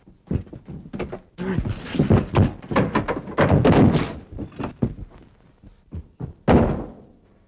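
Scuffle: a quick series of thuds and knocks as people struggle over a gun, ending in one loud thump about six and a half seconds in.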